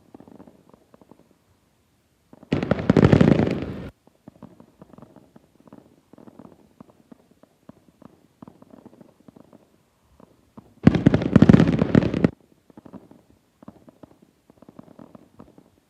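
Fireworks going off: two loud crackling bursts, each lasting about a second and a half, one a few seconds in and one near the end, with faint scattered pops between them.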